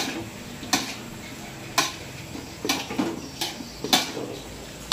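Metal spatula stirring pounded cassava leaves in an aluminium wok, knocking and scraping against the pan's side in irregular clinks about once a second.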